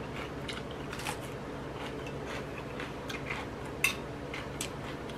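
Eating sounds: metal chopsticks and a spoon clicking against a plate while food is bitten and chewed, with one sharp clink about four seconds in. A steady low hum runs underneath.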